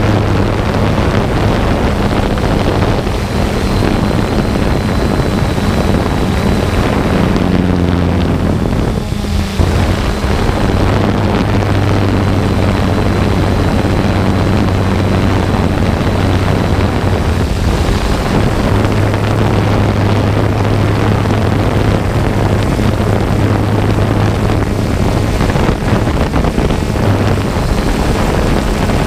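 Multirotor drone's motors and propellers running: a loud steady hum over wind-like noise, shifting slightly in pitch now and then, as heard on the drone's own camera.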